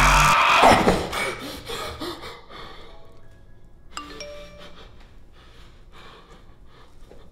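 A man's scream over a tense film score falls away about a second in. Then sparse, quiet score music follows, with a ringing chime-like note about four seconds in and faint breathing.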